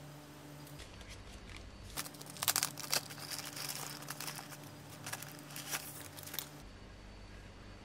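Crinkling and rustling of a soft plastic wrapping bag as a security camera is slid out of it, with light clicks and taps of handling. Loudest about two and a half seconds in, dying away a little before the end.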